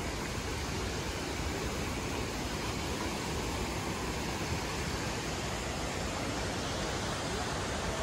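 Steady rushing of water spilling over small limestone cascades between the natural pools.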